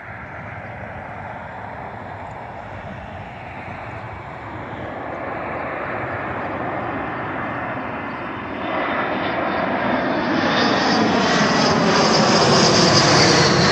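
A twin-engine jet airliner flies low overhead on approach with its landing gear down. Its engine noise swells steadily, jumps louder about two-thirds of the way in, and a high whine slides down in pitch as it passes.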